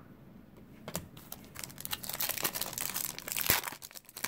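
Plastic wrapper of a Topps baseball card pack crinkling as it is handled, in a run of crackles that starts about a second in, with a sharp click near the end.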